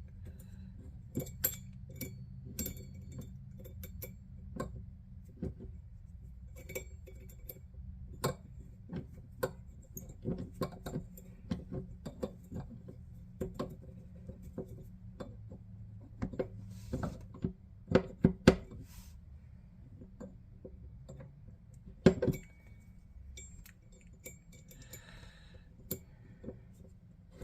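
Small metal clicks and clinks of a hex key working the little set screw into a Delta single-handle faucet handle, coming irregularly, with a few sharper clinks in the second half.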